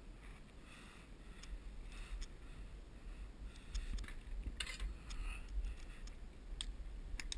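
Faint, scattered clicks and knocks from a mountain bike and its handlebar-mounted camera being handled, over a steady low rumble.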